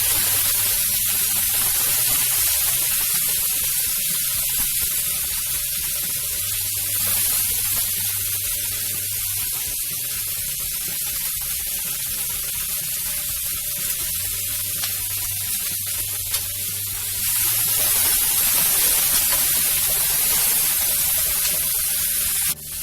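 Long beans frying in hot oil in a pan with sautéed garlic, a steady sizzle that grows a little louder near the end.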